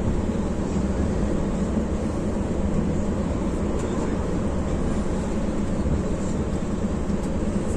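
Steady engine and road noise heard inside the cabin of a Mercedes-Benz intercity coach cruising at highway speed, a constant low hum with no changes.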